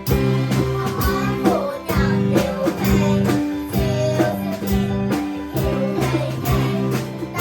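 A song: a voice singing over guitar, with held bass notes and a steady drum beat.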